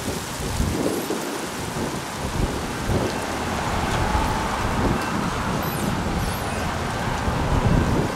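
Strong gusty wind buffeting the microphone: a loud rushing noise that swells and dips from gust to gust.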